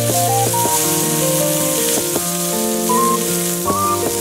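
Background music with a melody of clear, stepping notes, over the steady sizzle of beef steaks searing on a thick iron griddle plate.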